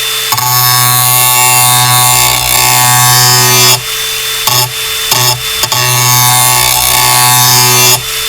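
Angle grinder grinding the cutting edge of a steel lawnmower blade: a loud, steady grinding with a ringing metallic tone. It eases briefly a few times, between about four and five and a half seconds in and again near the end.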